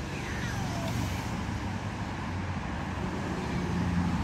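Steady low rumble of motor-vehicle traffic, growing a little louder about three and a half seconds in.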